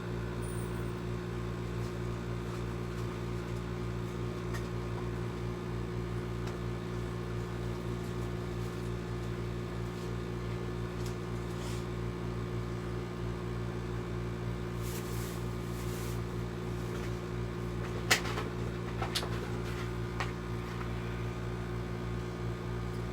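Steady machine hum, a low even drone with several fixed tones. A few sharp clicks come about eighteen to twenty seconds in.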